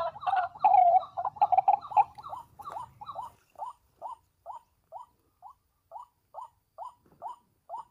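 White-breasted waterhen calling: a loud, jumbled run of 'wak' notes that settles into a steady series of short single notes, about two to three a second, slowing and getting quieter toward the end.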